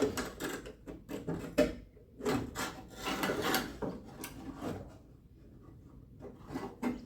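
Car door latch parts scraping, rubbing and knocking against the door's inner sheet metal as the latch assembly is worked into place, in quick irregular strokes. The sounds die down about five seconds in, with a few light clicks near the end.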